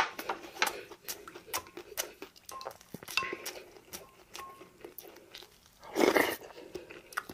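Close-miked chewing of a mouthful of rice, with many small wet mouth clicks and smacks, after a sharp click at the start. About six seconds in comes a short, louder slurp of soybean-paste stew from a spoon.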